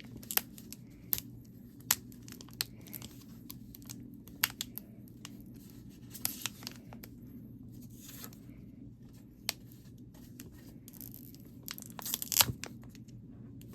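Foil wrapper of a Pokémon booster pack crinkling and tearing as it is opened by hand, in scattered sharp crackles with a denser, louder burst near the end.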